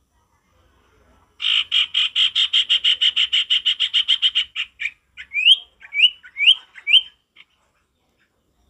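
Common iora (sirtu) singing: a rapid trill of about ten notes a second lasting some three seconds, then four quick rising whistles.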